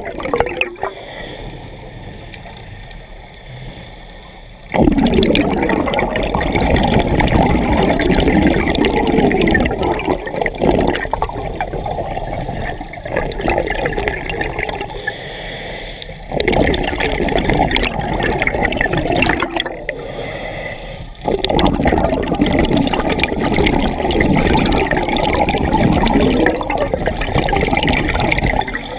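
Scuba regulator exhaust: a diver's exhaled air bubbling and gurgling out past the mask-mounted camera in long rushes of several seconds, three or four times, with quieter stretches between breaths.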